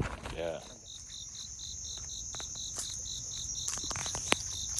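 Insects chirping in a steady chorus: a constant high-pitched buzz over a rhythmic chirp repeating about four times a second, with a few light clicks.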